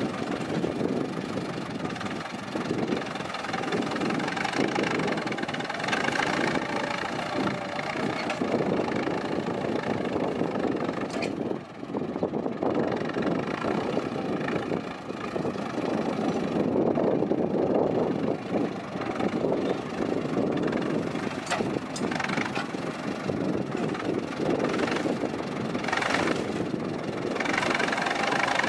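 Ford 6610 tractor's four-cylinder diesel engine running steadily through a loud exhaust, its note rising and falling slightly, with a brief drop about twelve seconds in.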